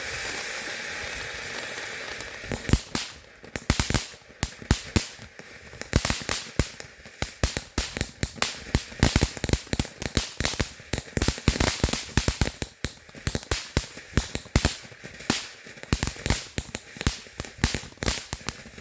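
Consumer fireworks going off: a steady hiss for about two seconds, then a long, rapid run of sharp bangs and crackles, several a second, that keeps going to the end.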